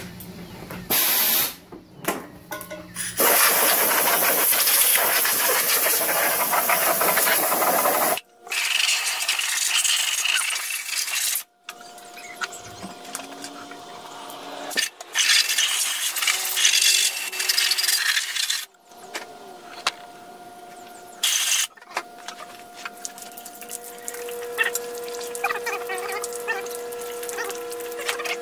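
Compressed-air blowgun hissing in several long bursts of a few seconds each, switched on and off abruptly, drying water off a freshly washed Ford 7.3 Powerstroke diesel block. Faint steady tones sound underneath in the second half.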